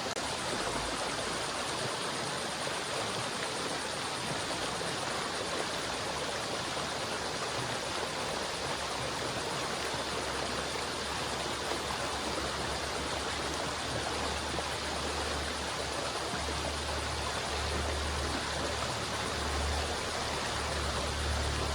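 A river's water flowing steadily, an even hiss-like wash of sound, with a low rumble underneath that grows stronger in the second half.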